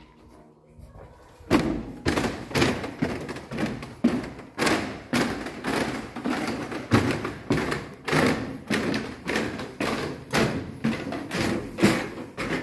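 Footsteps close to the microphone, thudding steadily at about two a second from about a second and a half in, as someone walks across the floor and climbs a staircase.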